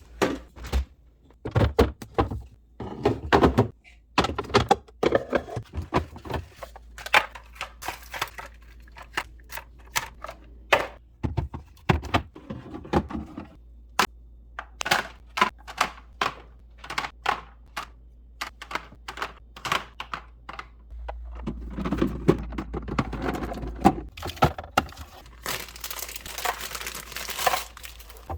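Groceries being unpacked and arranged in a refrigerator: a long run of separate clicks and knocks of plastic containers, bottles and lids being set down, with packaging crinkling and tearing, and a few seconds of continuous rustling near the end.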